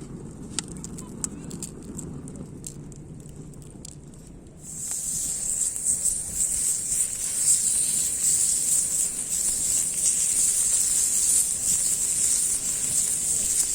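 Light crackling and ticking, then about four and a half seconds in a loud steady sizzling starts: meat frying on a hot thick iron griddle over a campfire.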